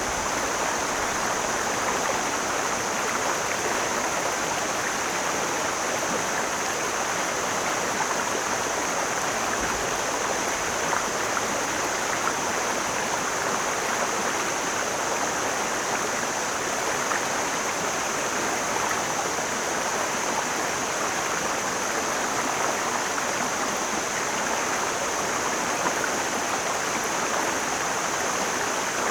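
Mountain stream flowing steadily: an even, unbroken rush of water with a thin steady high hiss above it.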